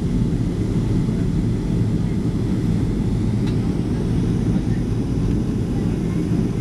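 Steady low rumble of cabin noise inside a Boeing 737 airliner on its descent to land: engine and airflow noise heard through the fuselage.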